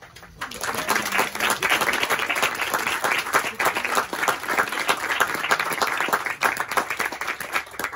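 Audience applauding: many people clapping together, starting about half a second in and continuing steadily.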